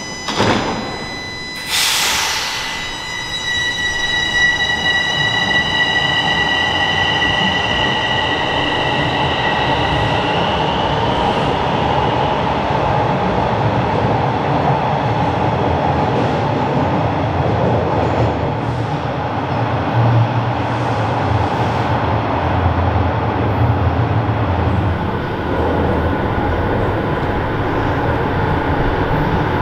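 Toronto Rocket subway train pulling out of a station: a short hiss about two seconds in, then steady high-pitched tones that fade over the next ten seconds as it gathers speed. Under them runs the continuous rumble of the train on the rails.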